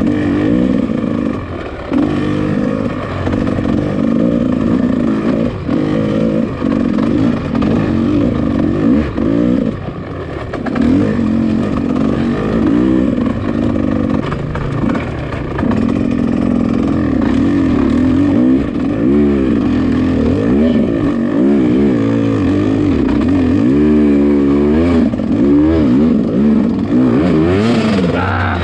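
Dirt bike engine under way on a rough trail, revving up and down over and over as the throttle is worked, with a few brief drops in the engine sound.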